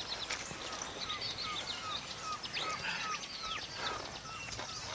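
Birds chirping over a steady outdoor background hiss: a run of short, evenly repeated chirps, about three a second, with other higher, sweeping calls mixed in.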